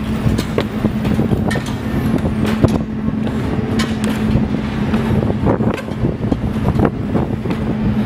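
An engine running at a steady pitch, with wind buffeting the microphone and scattered clicks and knocks over it.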